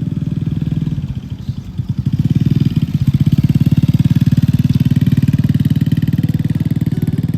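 A small engine running close by with a rapid, even pulse, growing louder about two seconds in.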